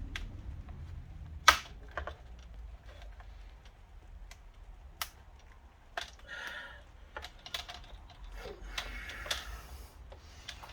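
Plastic laptop screen casing being pried apart: scattered clicks and taps with short stretches of scraping, and one sharp snap about one and a half seconds in.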